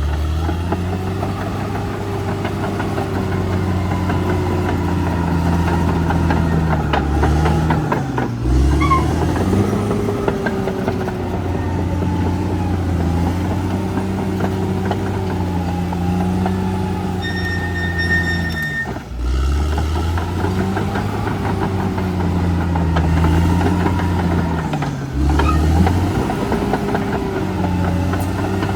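Caterpillar D6R XL bulldozer's diesel engine running under load, its note slowly rising and falling as it works. The sound briefly drops out and picks up again about eight, nineteen and twenty-five seconds in, with a short high whine just before the second break.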